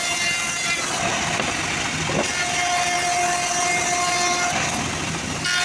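Homemade bandsaw mill running steadily while its blade rips a teak board lengthwise: a continuous machine hum with a whining tone that sets in about halfway through, over the hiss of the blade cutting wood.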